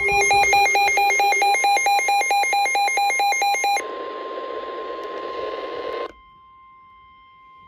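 Midland weather alert radio sounding its warning alarm: rapid electronic warbling beeps, about five a second, that cut off about four seconds in. The NOAA Weather Radio broadcast's steady warning alert tone then plays through the radio's speaker over hiss; the hiss drops away about six seconds in while the tone continues faintly.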